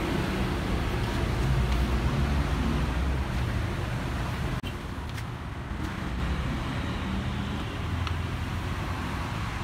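Low, uneven rumble of a motor vehicle engine running in the background, with a short dip in level about halfway.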